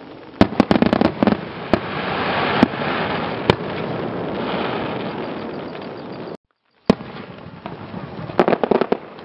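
Aerial firework shells bursting: a rapid cluster of sharp cracks about half a second in, then single bangs over a steady rushing noise, and another cluster of cracks near the end. The sound cuts out completely for about half a second past the six-second mark.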